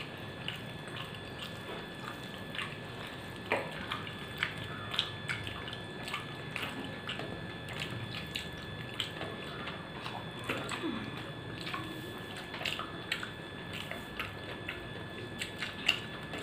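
Eating by hand: fingers mixing and scooping rice and dal on a steel plate, with chewing. Short, irregular wet clicks and smacks scattered throughout.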